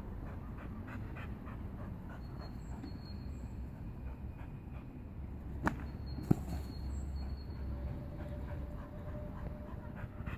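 Steady low outdoor rumble, with two sharp clicks about half a second apart a little past the middle.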